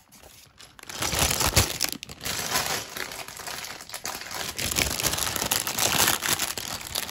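Clear plastic bag of LEGO pieces crinkling as it is handled, starting about a second in.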